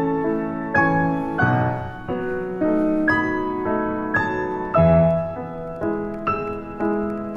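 Background piano music: a slow, gentle melody of sustained notes struck one after another.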